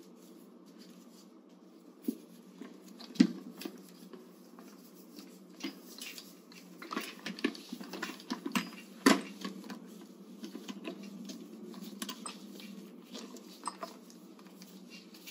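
Water sloshing and dripping as a washcloth is dipped and wrung out in a wash basin to rinse the patient's foot, with light clatter against the basin. It starts about two seconds in, with two louder knocks about three and nine seconds in.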